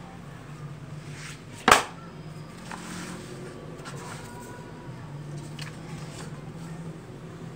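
Glossy magazine being handled on a tiled floor: paper rustles as it is opened and its pages are turned, with one sharp, loud slap a little under two seconds in. A low steady hum sits underneath.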